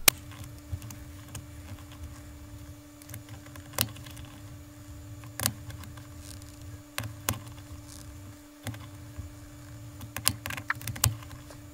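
Scattered sharp metal clicks and taps of a socket and dial-type inch-pound torque wrench being set onto and turned on the cover bolts of a Ross steering valve, more frequent near the end, over a steady low hum.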